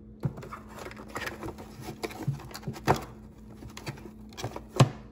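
A launch tube being worked loose from a tight cardboard box insert: cardboard rubbing and scraping, with several knocks. The loudest knocks come about three seconds in and just before the end.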